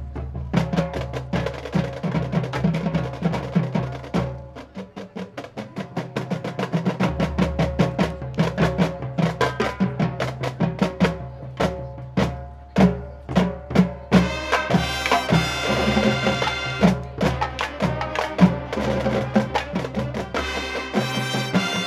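High school marching band playing its field show: rapid drum and percussion strikes over a steady low tone, with loud sustained chords joining in about two-thirds of the way through.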